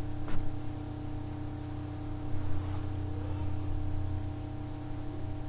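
Ginger-onion-garlic paste spooned from a glass bowl into hot oil in a stainless steel pan, with a sharp spoon clink just after the start and scraping, over a steady hum and a faint sizzle.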